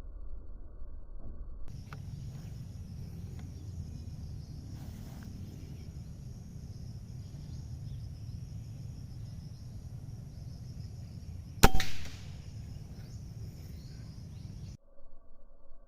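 A single sharp shot from a PCP air rifle about three-quarters of the way through, with a short ringing tail. Under it runs a steady low outdoor rumble and a faint high hiss.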